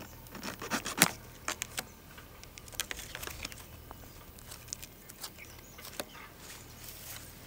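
Scattered light clicks and knocks at irregular intervals, the sharpest about a second in, over a faint steady low hum.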